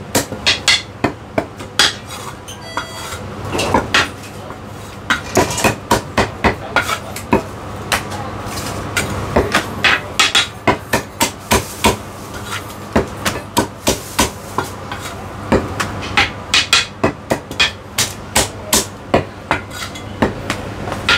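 Heavy meat cleaver chopping roast meat on a wooden chopping block: runs of sharp chops, several a second, broken by short pauses, over a steady low hum.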